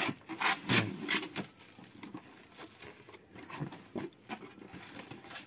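A cardboard box being opened by hand: the taped flaps are cut and pulled apart with several sharp tearing and scraping strokes in the first second and a half, followed by quieter rustling of the cardboard.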